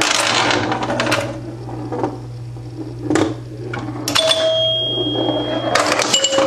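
A 1974 Bally Champ electromechanical pinball machine starting a game: relays, stepper units and score reels clacking in a rapid run of clicks and knocks over a steady low hum. About four seconds in, and again near the end, a bell-like tone rings for a second or more.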